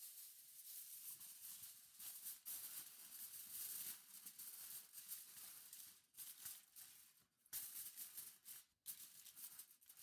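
Aluminium foil crinkling and rustling as it is handled and pressed over a roasting pan, in uneven crackly bursts with a couple of short pauses.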